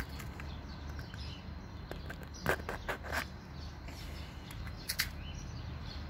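Handling noise: a few short clicks and rustles, loudest about two and a half seconds in and again near five seconds, over a steady low hum.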